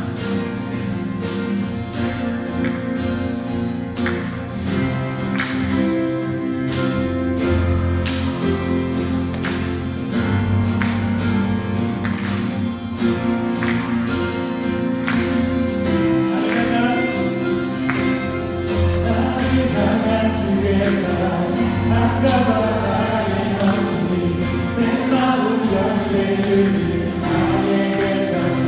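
Church worship music: a praise song with strummed guitar and sustained chords on a steady beat. A group of voices sings, coming in strongly about halfway through.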